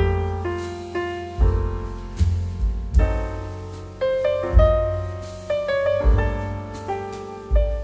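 Background piano music: notes struck and left to ring and fade, with low bass notes landing about every second and a half.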